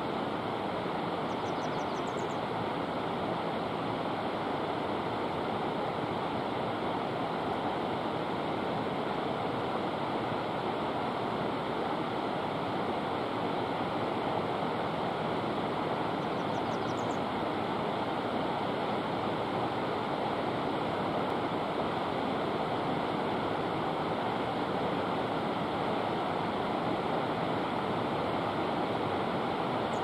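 Steady rushing, water-like noise throughout, with two brief, faint, high bird chirps, one about two seconds in and another just past the middle.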